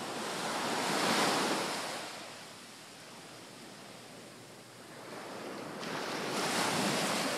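Small waves washing up on a sandy beach, the surf swelling twice about five seconds apart with a quieter lull between.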